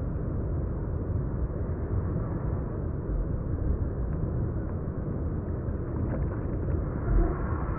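Steady, muffled rumble of flowing river water.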